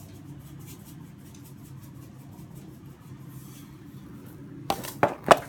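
Sea salt being dispensed from its container onto the tomatoes: a faint, repeated rasping. Near the end come three sharp knocks in quick succession.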